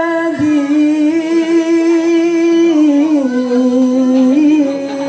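A male solo voice singing a sholawat (Islamic devotional song), drawing out one long vowel on a single breath. The held pitch steps down slowly and back up in small melismatic turns, with no drumming heard.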